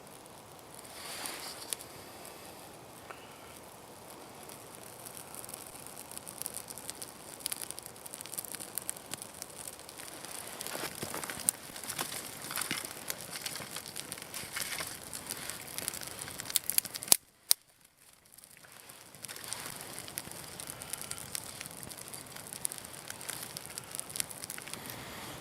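Campfire crackling, with irregular sharp snaps and pops over a low hiss. About seventeen seconds in the sound drops briefly to near silence, then the crackling resumes.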